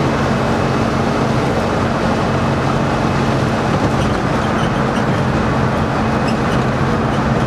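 Cabin noise of a 1965 VW Beetle converted to a 96-volt DC electric drive, cruising at highway speed: steady road and wind noise with a low, even hum that holds its pitch.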